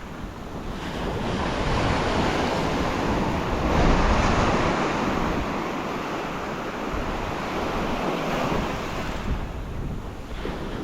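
Surf breaking and washing up the beach, swelling to its loudest about four seconds in and then easing, with wind rumbling on the microphone.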